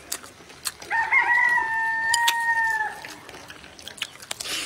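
A rooster crowing once: one long held call of about two seconds, starting about a second in. A few sharp clicks are heard around it.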